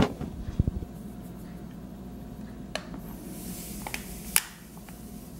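Quiet kitchen handling sounds as dry yeast is spooned into a plastic bowl of warm water: a few soft knocks near the start, then scattered faint clicks and a brief soft hiss.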